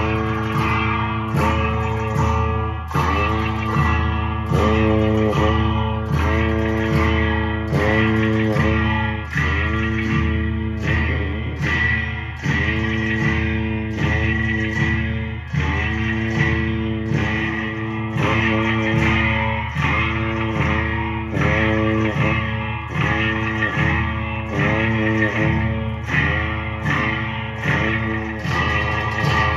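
Music on a plucked string instrument, guitar-like, strummed in a steady beat of about one stroke a second.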